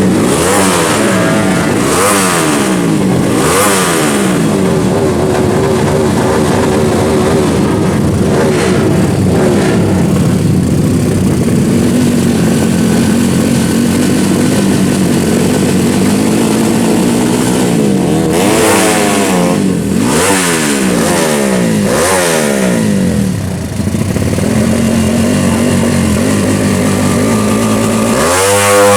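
Four-stroke underbone drag-race motorcycle engines revving hard, their pitch rising and falling again and again, with a sharp rising rev near the end.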